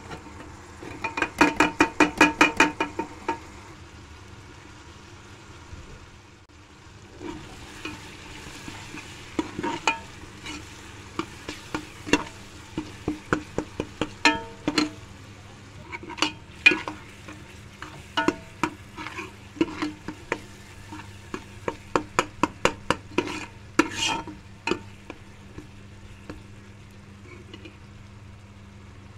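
A steel ladle stirs and scrapes masala frying in oil in a pressure cooker pot, knocking against the metal pot with ringing clinks over a faint sizzle. A quick run of rapid clinks comes about a second in, then irregular clinks through the rest.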